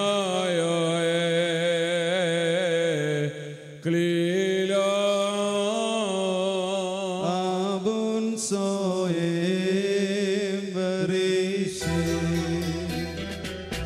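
A bishop's solo liturgical chant, one man's voice sung into a microphone in long held notes with a wavering pitch, with a short break for breath about four seconds in.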